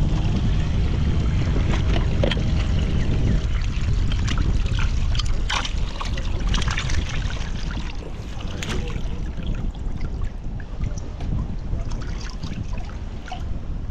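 Water sloshing and splashing in a cooler used as a live-bait well as a hand scoops out the bait fish, with many short splashes and drips, busiest in the middle.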